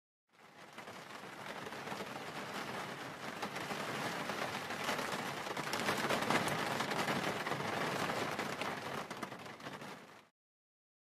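Rain falling, a dense hiss of drops that fades in about half a second in, swells toward the middle and fades away shortly before the end.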